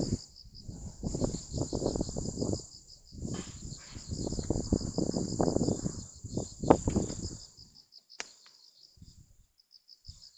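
Crickets chirping in a steady, fast pulsing trill, pausing briefly after about eight seconds. Underneath, louder low rumbling noise comes and goes in two long stretches, with a sharp click or two near the end of them.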